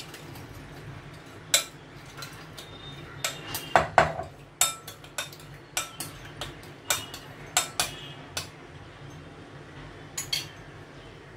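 Metal spoon clinking against a glass mixing bowl while stirring thick sauce, a string of sharp, irregular clinks.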